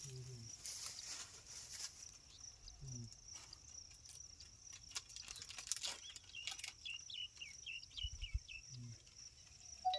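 Quiet rural field ambience: a steady high-pitched insect drone with a quick run of short chirps about two-thirds of the way through, and a few faint clicks.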